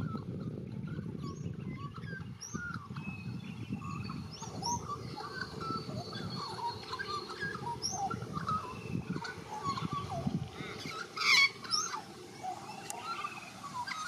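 White-backed Australian magpie singing a soft, rambling warble of many short chirps, trills and gliding notes. One brief, louder burst comes about eleven seconds in.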